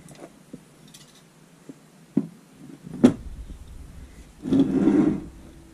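Handling noise from a carburettor being picked up and moved on a workbench: a few scattered knocks, the loudest about three seconds in, then a brief scraping rustle near the end.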